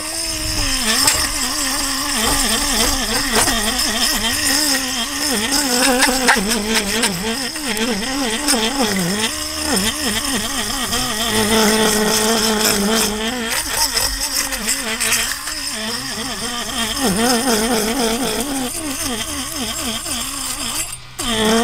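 Handheld electric fish scaler running against a striped bass's scales: a motor whine whose pitch wavers up and down, over a scraping hiss. The motor cuts out briefly near the end.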